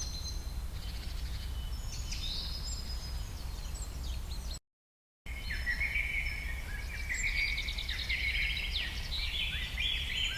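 Many birds chirping and calling at once, a dense overlapping chorus of short chirps and whistles over a steady low rumble. The sound drops out completely for about half a second a little before the middle.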